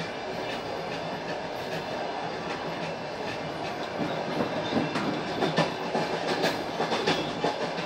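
Passenger train running, its wheels clattering over the rail joints, with a quick run of sharp knocks in the second half.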